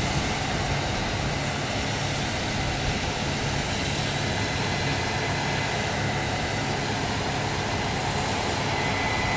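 Steady engine drone of heavy farm machinery at work, the Case IH 8230 combine running while it unloads grain into a cart, with a faint high whine that grows a little stronger near the end.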